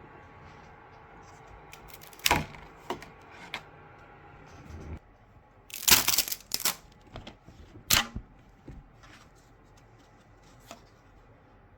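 Sharp clicks and knocks of hard plastic parts being handled, a few seconds apart, the loudest a pair about six seconds in, over a faint steady hum.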